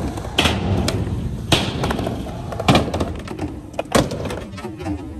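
Skateboard wheels rolling on concrete, with four sharp clacks of boards striking the ground roughly a second apart.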